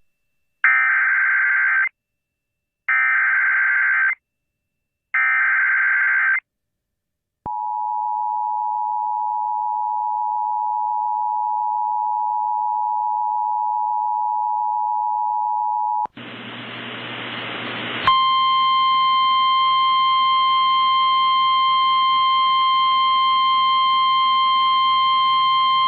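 Emergency Alert System tones. Three bursts of warbling SAME digital header data come about a second apart, followed by the steady two-tone EAS attention signal for about eight seconds. After about two seconds of rising static, a single-pitch NOAA Weather Radio alert tone starts and holds steady.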